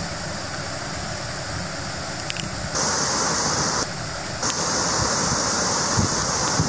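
Heavy rain and the flood-swollen river rushing below, a steady noisy hiss that grows louder about three seconds in.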